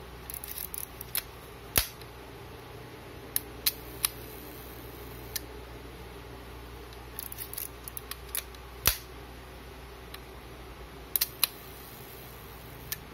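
Agfa Super Silette-L vintage camera's mechanism being worked by hand: a series of sharp mechanical clicks, the two loudest about two seconds and nine seconds in, with quick runs of smaller clicks between them, from the shutter firing and the controls being operated.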